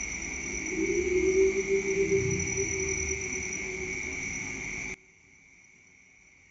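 Crickets chirring steadily. For about five seconds a louder low rumble with a hum joins in, then cuts off abruptly about five seconds in, leaving only the insects.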